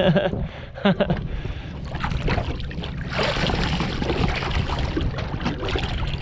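Seawater splashing and sloshing as hands are worked at the surface over the side of a small aluminium boat. The splashing gets louder and fuller about three seconds in, over a steady low hum.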